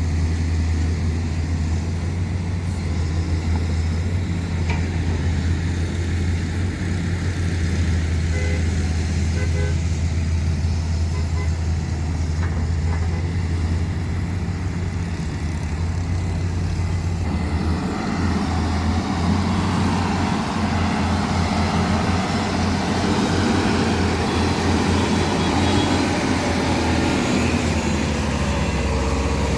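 Sunward SWE210 excavator's diesel engine running steadily with a deep hum, the sound growing fuller and noisier a little past halfway.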